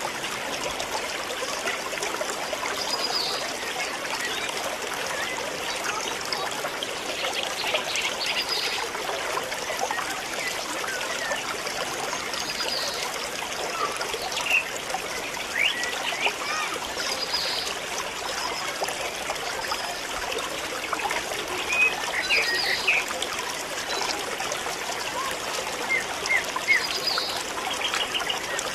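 Steady trickling of running water, with short high chirps every few seconds.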